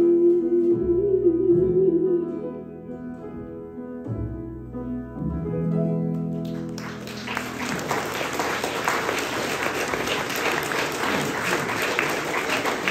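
The song's closing notes are held and fade out. About seven seconds in, audience applause breaks out and continues.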